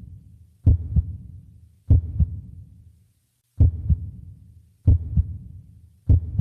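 A slow heartbeat: paired low lub-dub thumps, about five beats, each pair coming roughly every 1.2 seconds.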